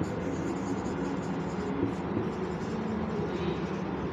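Steady background rumble and hum, with a marker writing on a whiteboard; the writing is faintly heard a little after three seconds in.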